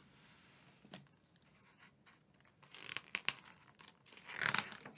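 Paper rustling as a picture book's page is handled and turned, with a few soft clicks and then a louder swish of the page near the end.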